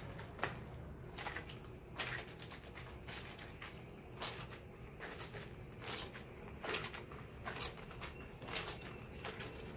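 Wet cotton dish towel being scrubbed and squeezed by hand in a plastic basin of soapy water. Soft, irregular splashes and squelches come about once a second.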